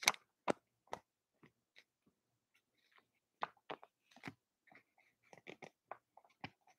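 Scattered small clicks and taps, about a dozen at uneven spacing, like handling noise as the camera or table setup is moved.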